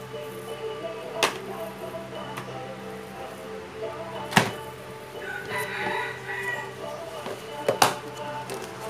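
Three sharp knocks, about three seconds apart, over a steady hum of held tones, with a short higher-pitched call briefly in the background about halfway through.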